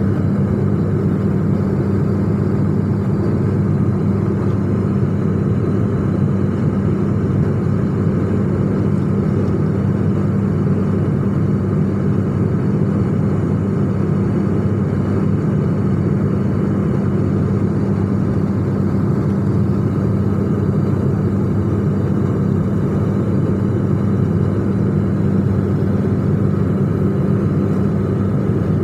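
Steady drone inside an airliner cabin in flight, with a constant low hum under the engine and airflow noise.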